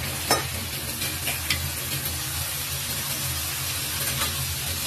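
Sliced meat sizzling in hot oil in a wok, with a wooden spatula stirring and knocking against the pan a few times, the sharpest knock about a third of a second in. A low steady hum runs beneath.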